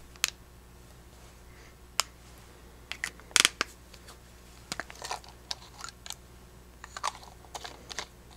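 Small spray bottle of room and linen spray being handled: scattered light clicks and taps, with a brief, louder cluster of clicks about three and a half seconds in.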